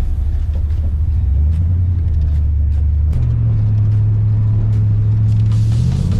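A car engine running with a low rumble, its pitch stepping up twice as the revs are raised and held.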